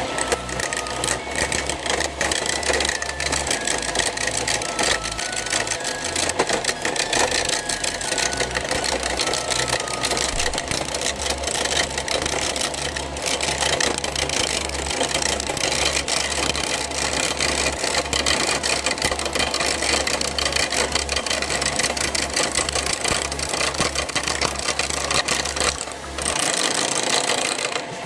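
Homemade wood lathe running while a hand-held steel turning tool cuts into a spinning teak-root blank: a continuous rough scraping with fine rapid chatter over the low hum of the lathe's motor. Near the end the low hum drops away for about two seconds while the scraping goes on.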